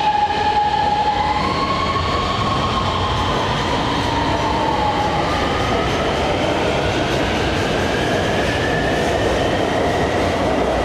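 Six-car Type B metro train pulling out of the station, its electric traction drive whining in tones that jump and then glide upward as it gathers speed, over the steady running noise of the wheels on the rails.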